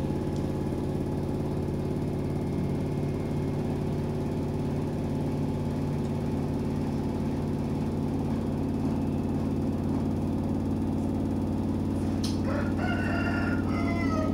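Washing machine motor running with a steady low hum. A rooster crows once near the end.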